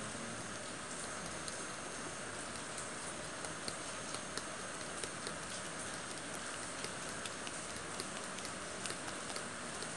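Cake batter being mixed by hand in a bowl: the utensil clicks lightly and irregularly against the bowl over a steady hiss.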